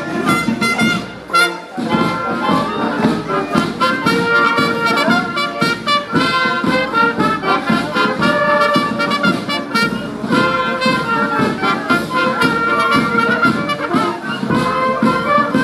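Wind band playing: clarinets and flutes over trumpets and a tuba, with snare and bass drums keeping a steady beat. A short break in the playing comes about a second and a half in.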